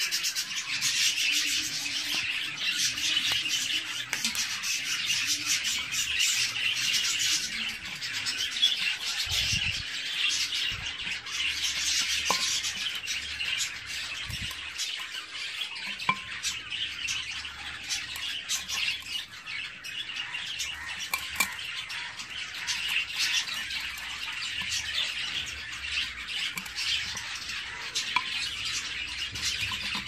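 Budgerigars chattering and chirping continuously, many birds calling at once.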